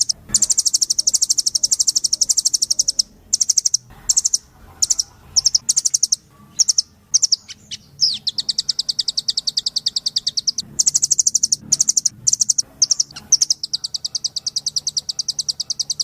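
Velvet-fronted nuthatch (rambatan doraemon) singing: high, very rapid trills of quickly repeated notes in long runs, broken by short pauses.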